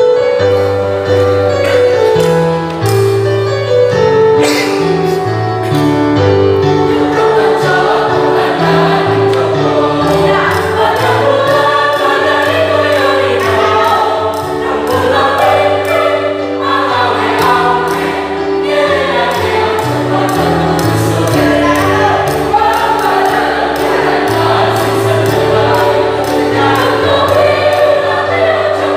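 Mixed choir of men and women singing together in harmony, several voice parts holding chords over low bass notes that change every second or two.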